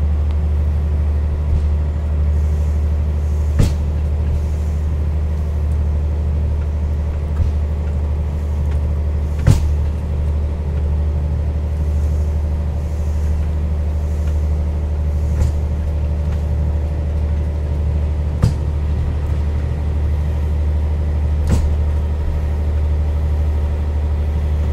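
A train running along the track, heard from the cab: a steady low rumble of the moving train, with a short sharp click every few seconds as the wheels pass over rail joints.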